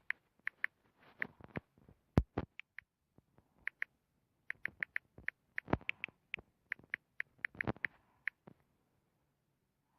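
A run of light, quick, irregular clicks and taps, bunched most thickly in the middle.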